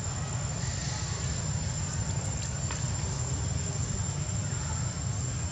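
Steady outdoor background noise: a low rumble with a constant high-pitched whine above it, and a few faint ticks about two and a half seconds in.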